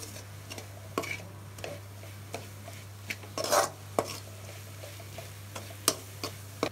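A metal ladle stirring onion-tomato masala frying in oil in an aluminium kadai. It knocks against the pan's side roughly every half second to second, with one longer scrape about three and a half seconds in.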